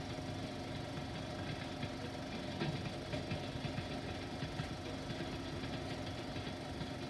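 Steady hum and hiss from 16mm film playback, with scattered crackles and pops through the middle.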